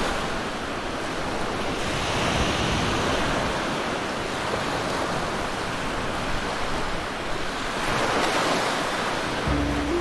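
Ocean surf washing onto a beach: an even rush of water noise that swells twice, about two seconds in and again near the end. Soft music notes come in just before the end.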